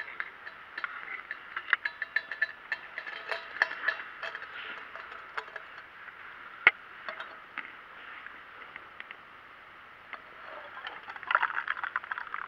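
Metal camping cookware being handled: a stainless pot, its lid and the small gas stove give irregular clinks, taps and scrapes, with one sharp click about six and a half seconds in and a burst of clattering near the end.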